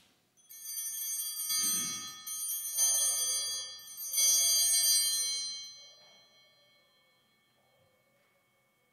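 Altar bells shaken in several bursts at the elevation of the chalice during the consecration. They ring with a bright, high tone and then die away.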